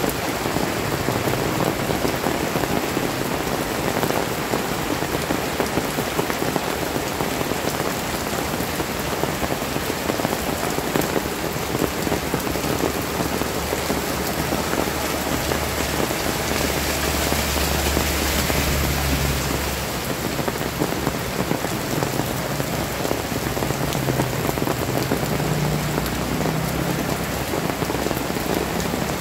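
Heavy rain falling steadily on a wet brick-paved street, a dense even hiss of rain on hard surfaces.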